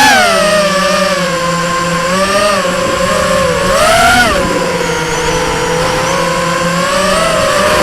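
FPV multirotor drone's electric motors and propellers whining, the pitch rising and falling with the throttle, with sharp rises at the start and again about four seconds in.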